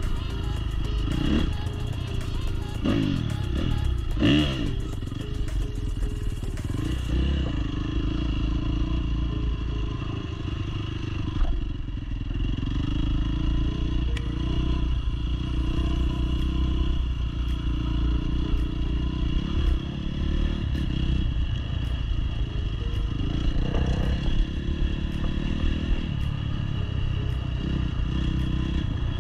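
Dirt bike engine running under way, its revs rising and falling several times in the first few seconds, then holding steadier, with some clatter from the bike.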